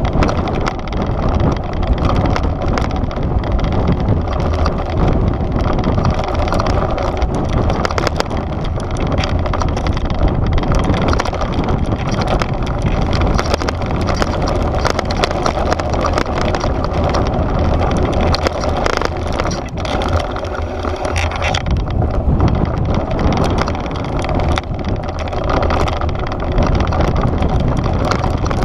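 Mountain bike riding fast down a loose, rocky dirt trail, heard from a camera mounted on the bike: continuous tyre crunch over gravel, with many knocks and rattles from the bike as it hits rocks, over a steady low rumble.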